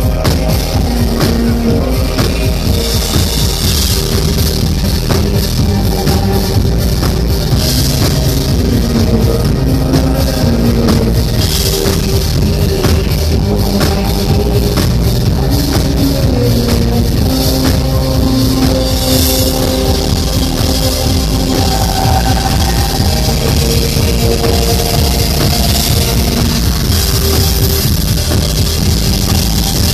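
Live synth-pop band playing loud through the PA: a steady drum beat with bass guitar and synthesizers.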